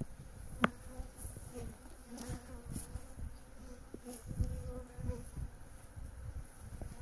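Honeybees buzzing around an open hive: a faint, wavering drone as bees fly close by. A single light knock comes just under a second in.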